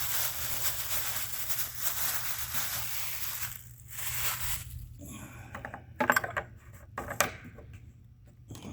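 Handling noise while working on a snow blower: rustling and scraping, then a few sharp clicks or knocks about six and seven seconds in.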